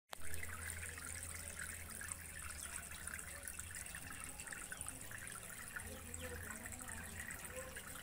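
Small tabletop fountain running: water pours steadily from its tube spout into a plastic tub of water, a continuous splashing trickle over a low hum.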